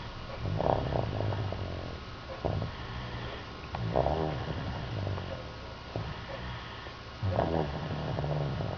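Slow, steady snoring from someone asleep: three low-pitched snores about three and a half seconds apart.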